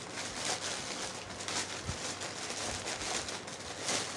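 Plastic wrapping crinkling and rustling in irregular bursts as it is handled and opened to take out a new hat.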